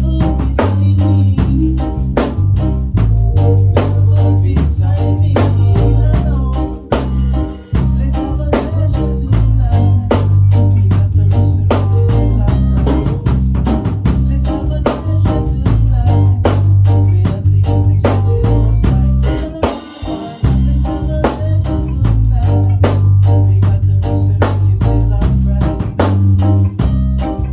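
Live band playing an instrumental reggae groove: a drum kit with rimshots and snare over a heavy bass line. The band briefly drops out twice.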